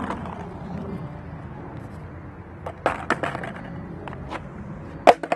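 Skateboard on Independent trucks rolling, its wheels making a steady rumble, with a few sharp clacks. The loudest clack comes near the end.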